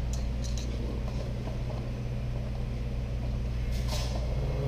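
Steady low electrical hum with a few light clicks. Just before the end a click is followed by a deeper, stronger hum as the Jofemar Vision cooling unit's compressor starts on its newly fitted 3-in-1 start kit.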